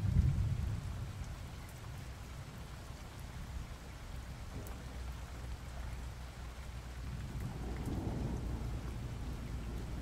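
Steady rain falling, with rolling thunder: a loud low rumble right at the start that dies away over about a second, and a softer rumble swelling about eight seconds in.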